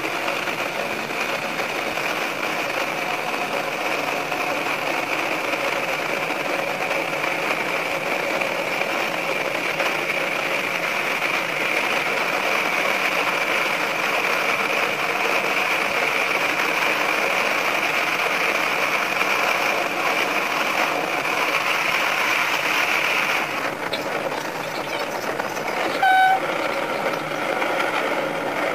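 Sanriku Railway 36-200 diesel railcar running through a tunnel, a steady rush of engine and wheel-on-rail noise. Near the end the train gives one short horn blast.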